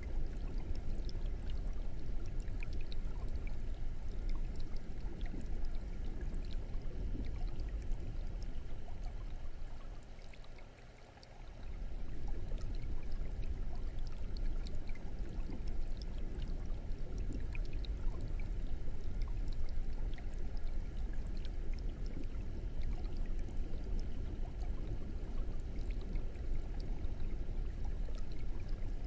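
Aquarium air stone bubbling, a steady watery trickle over a low rumble; it quietens briefly about eleven seconds in.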